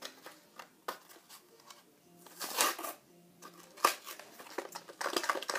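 A Hot Wheels blister pack being pried and torn open by hand: scattered sharp clicks and crinkles of the plastic and card, with a longer tearing rustle about two and a half seconds in and a flurry of them near the end.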